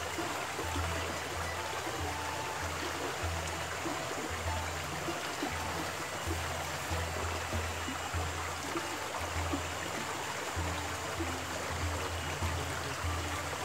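Steady rush of a shallow mountain stream running over stones, with background music with a pulsing bass line over it.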